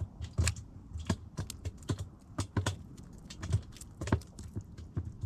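Irregular sharp clicks and light knocks, roughly two a second, from an ice-fishing rod and reel being handled while the jig is sent back down the hole.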